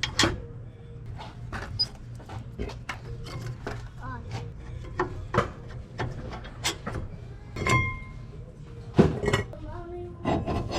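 Irregular metallic clinks, knocks and scrapes of tools and brake parts being handled during a wheel-hub job, with one clink about two-thirds of the way through that rings briefly.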